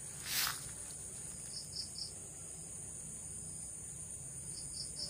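Steady high-pitched drone of insects in the surrounding vegetation, with a brief swish about half a second in and two sets of three quick chirps, one near two seconds and one near the end.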